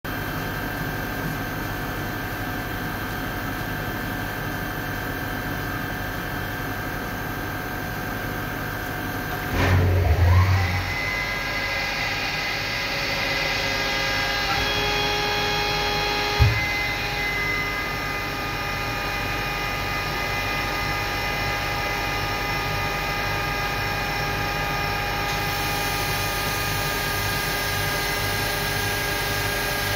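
2006 Haas Multigrind HT five-axis CNC tool grinding machine running with a steady mechanical hum and whine. About ten seconds in, a loud low rumble comes with a rising whine that settles into a higher steady tone. A single sharp click follows a few seconds later.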